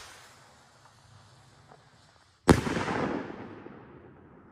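Aerial firework: the hiss of its launch fades out, then about two and a half seconds in the shell bursts overhead with a single sharp bang and a long echoing tail that slowly dies away.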